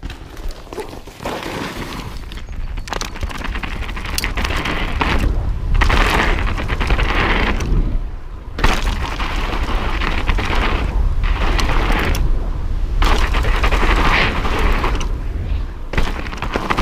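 A mountain bike riding fast down a rough dirt trail: heavy wind buffeting on the microphone, with tyre noise on the dirt swelling and fading and the bike rattling and knocking over bumps.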